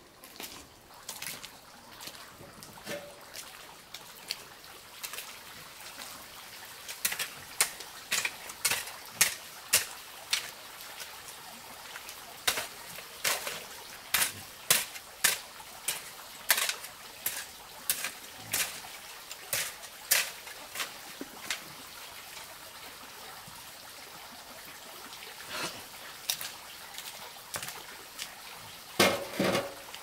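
A shovel scraping and slapping through wet, sloppy mud in repeated strokes, about one a second, with a louder, deeper thud near the end.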